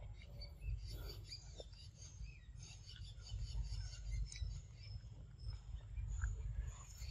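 Forest ambience: many short bird chirps and insect calls over a steady low rumble.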